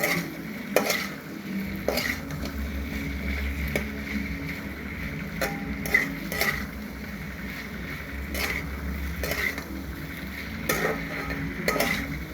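A spoon stirring chicken pieces through sauce in a cooking pan: irregular scrapes and knocks of the spoon against the pan, over a faint sizzle and a steady low hum.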